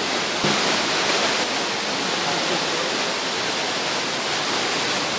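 Indoor waterfall: a steady rush of falling water.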